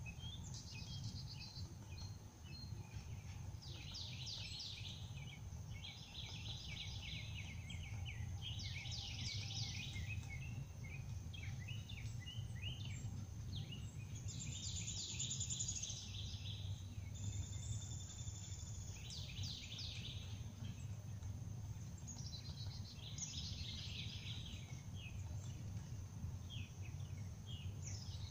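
Songbirds calling in short bursts of chattering and trilling notes every few seconds, over a faint steady high-pitched hum and a low steady rumble.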